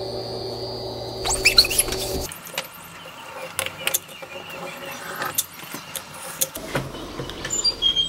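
A steady hum that cuts off abruptly about two seconds in, followed by scattered clicks and taps from a caulk gun laying a bead of caulk along the edge of a door's glass pane.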